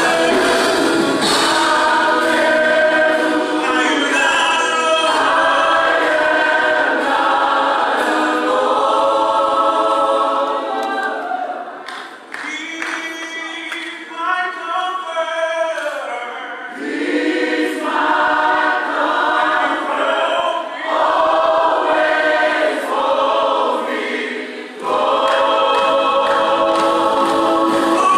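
Samoan church choir of men and women singing a gospel song together, loud and full. About halfway through the sound thins and quietens for a few seconds before the full choir comes back in.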